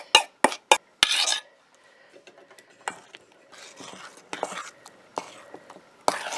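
A metal spoon against stainless steel bowls as thick pudding is scraped out of a small bowl into a mixing bowl. There are several sharp clinks in the first second, then softer scraping and stirring as the pudding is folded in.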